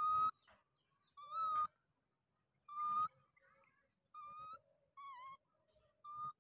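Baby macaque giving six short, high coo calls, each about half a second long with a pause between. A couple of them dip slightly in pitch.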